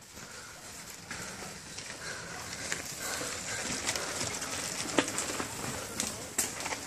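Mountain bike passing close on a dry dirt trail: tyres crunching over loose dirt and stones, growing louder as the rider nears, with crackles and a sharp click about five seconds in.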